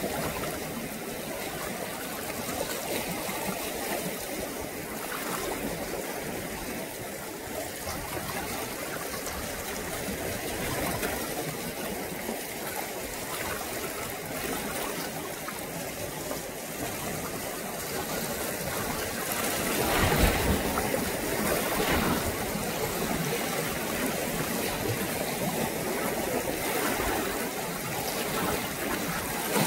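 Choppy sea water lapping and sloshing steadily, with a louder stretch about two-thirds of the way through.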